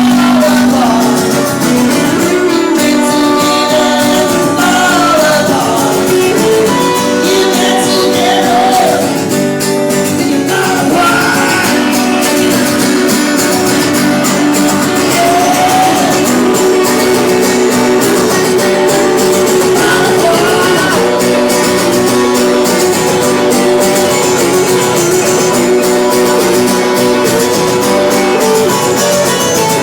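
Live band music led by guitars, a steady passage with a higher line bending up and down in pitch over it.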